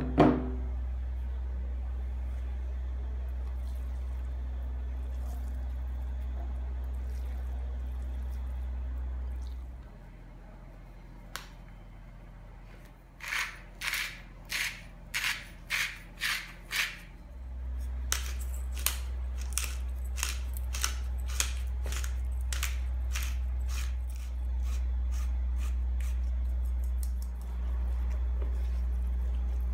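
A hand-twisted spice grinder grinding over a bowl: about eight rasping strokes in quick succession, roughly half a second apart. A run of lighter, evenly spaced clicks follows. A thump comes at the very start, and a steady low hum runs underneath except for a few seconds before and during the grinding.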